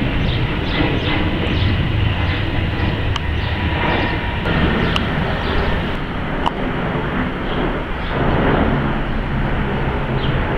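Twin-engine jet airliners flying overhead, a steady low engine rumble: first a narrow-body twin-jet climbing out, then, after a change about five seconds in, an Airbus A330 on approach with its landing gear down.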